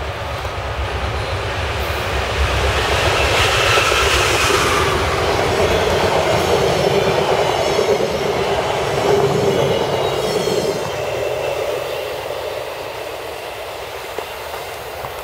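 VIA Rail passenger train passing at speed. First comes the diesel locomotive's deep rumble with a falling whine as it goes by, then the steady rush of the passenger cars' wheels on the rails, easing off as the train moves away near the end.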